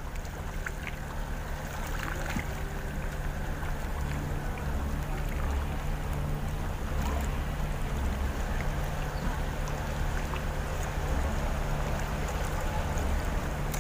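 Low, steady engine drone that slowly grows louder.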